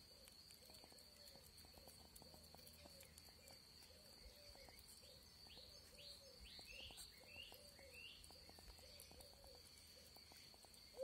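Faint clicking and smacking of a hedgehog chewing soft food from a bowl. Behind it, a soft low call repeats about twice a second, a steady high whine runs throughout, and a few short falling bird chirps come in the middle.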